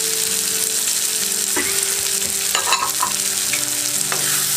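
Green capsicum and peas sizzling in hot oil and masala in a kadhai, with a steady hiss. From about a second and a half in, a wooden spatula stirs them, scraping and clicking against the pan several times.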